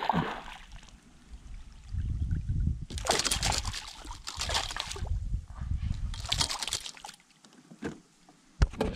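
Water splashing in three short bursts as a hooked silver arowana thrashes at the surface beside a kayak. A single sharp knock near the end is the loudest sound.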